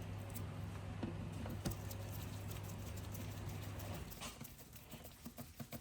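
Small clicks and taps of a screwdriver and plastic appliance casing being handled during reassembly, over a steady low hum that cuts out about four seconds in.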